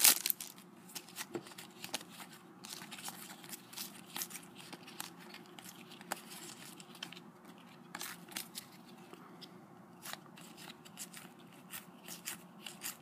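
Foil wrappers of Topps Match Attax trading card packets crinkling in the hands and cards being slid and flicked through: a string of small, sharp crackles and clicks, with one louder crackle at the very start.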